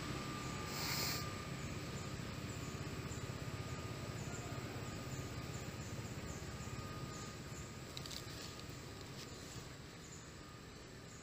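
Outdoor forest ambience: a steady low rumble under faint, high-pitched chirps that repeat about twice a second, with a short hissy burst about a second in.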